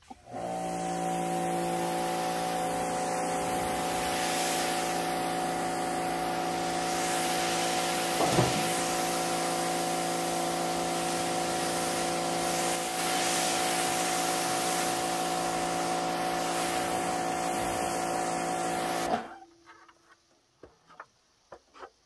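Pressure washer blasting debris off a bus roof: a steady motor hum under the hiss of the high-pressure spray. It starts suddenly, runs for about nineteen seconds with a single knock about eight seconds in, then cuts off abruptly.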